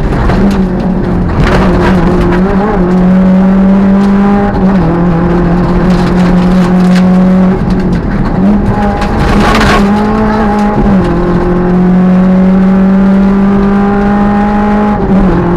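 Peugeot 205 rally car's four-cylinder petrol engine running hard under load, heard from inside the cabin, its note holding steady and then dipping and picking up again a few times as the driver changes gear or lifts. Short rushing bursts of noise come about a second and a half in and again near ten seconds.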